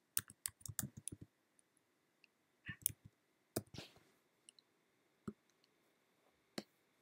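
Faint typing on a computer keyboard: a quick run of about eight keystrokes, as the file name 'squirrel' is typed. A few scattered single clicks follow.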